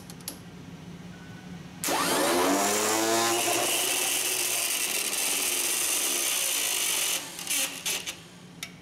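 Ford tractor electric starter motor bench-run off a battery. It spins up with a rising whine about two seconds in, runs at full speed for about five seconds, then cuts off, followed by a few sharp clicks. It is being spun at full speed to make the stuck-open centrifugal-clutch Bendix drive release its locks.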